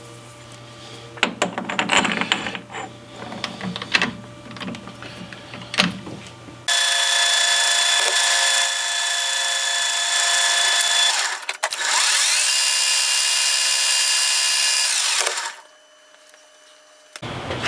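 Metal parts knocking and clicking as a metal tube is set into a metal lathe's six-jaw chuck. About seven seconds in, the lathe runs with a steady high whine, breaks off briefly, then whines up in pitch and runs steadily before cutting off a couple of seconds before the end.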